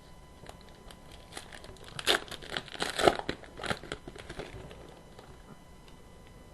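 Foil wrapper of a Panini Contenders hockey card pack being torn open and crinkled. The crackling and ripping runs from about a second and a half in to about four and a half seconds in, loudest around two and three seconds.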